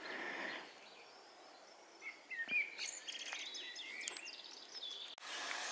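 Birds chirping and singing: a run of short, quick calls starting about two seconds in, over faint outdoor background noise. A steady hiss comes in abruptly near the end.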